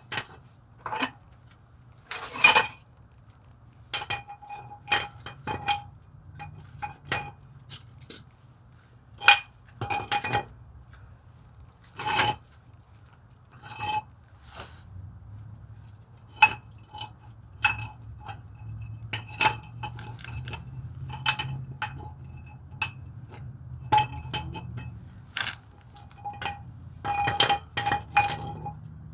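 Metal parts and hand tools clinking and tapping against each other while parking brake shoes and springs are handled, in many separate sharp knocks, several of them ringing briefly.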